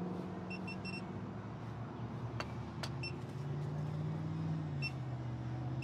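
Steady motor hum with a low held pitch that drops a step about halfway through. Three short high beeps sound about half a second in, and one more near the end.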